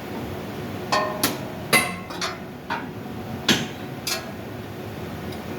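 About seven sharp metal knocks, irregularly spaced, each with a brief ring, over a steady background hiss.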